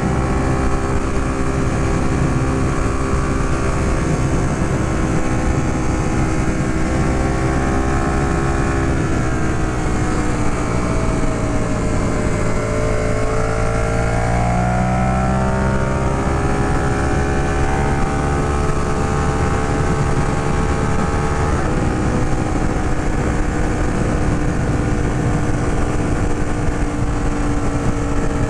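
Ducati Monster 821's Testastretta L-twin engine running steadily at riding speed. About halfway through, its pitch falls as the throttle eases off, then climbs again as the bike accelerates.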